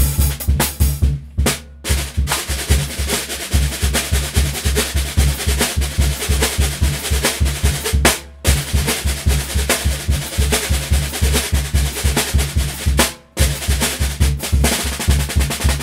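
Snare drum played with drumsticks in a fast, busy pattern over bass-drum beats, stopping briefly three times: about a second and a half in, about eight seconds in, and about thirteen seconds in.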